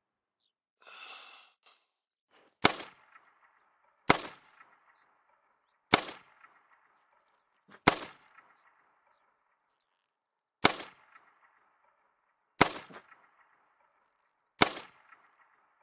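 .22 LR rifle fired seven times, single shots about one and a half to three seconds apart, each crack followed by a short echoing tail.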